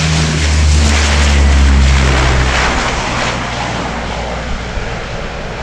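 Lockheed AP-3C Orion's four Allison T56 turboprop engines at take-off power: a deep steady propeller drone under a loud rushing noise. Both fade over the last two seconds or so as the aircraft moves away.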